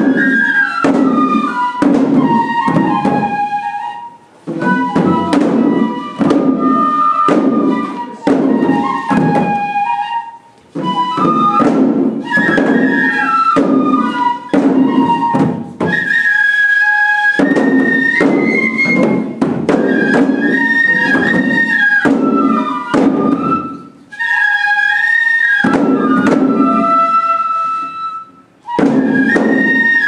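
Bamboo flutes playing the melody for a Japanese shishimai lion dance, with repeated drum strokes beneath. The music breaks off briefly between phrases four times.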